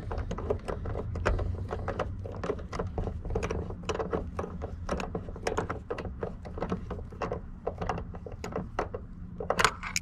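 Hand ratchet wrench clicking rapidly as it runs a long bolt of a new truck door hinge into the body, with a louder burst of clicks near the end.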